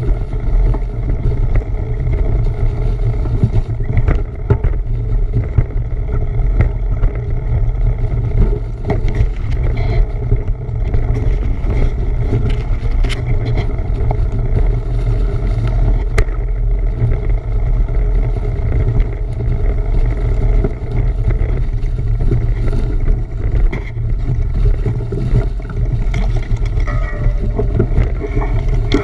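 Steady low wind rumble buffeting the microphone of a camera carried on a moving bicycle, with the ride's road noise beneath it.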